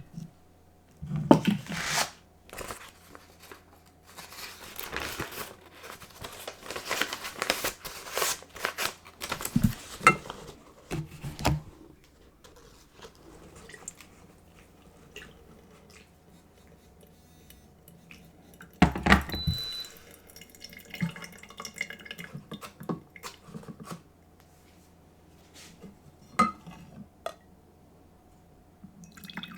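Filter coffee being made: water pouring and dripping, with clinks and knocks of cups and dishes. The busiest part is in the first third, and there is one heavier knock about two-thirds in.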